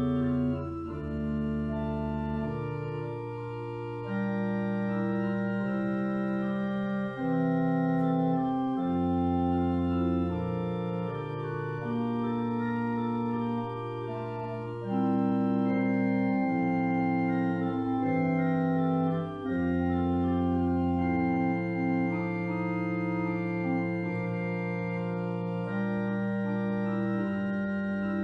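Organ playing slow, sustained chords, each note held evenly without dying away and the chords changing every second or two.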